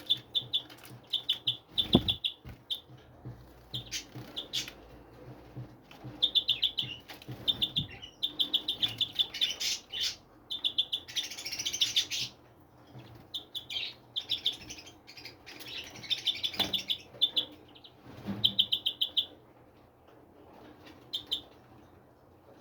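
Small birds chirping in quick rattling runs of calls, over and over, with a couple of sharp knocks, one about two seconds in and one later on.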